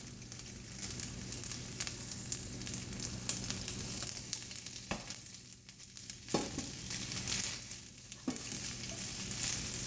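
Eggs, butter and cheese with egg noodles sizzling in a hot pot on a stove burner as a spoon stirs and scrapes through them, with a few sharp knocks of the utensil against the pot.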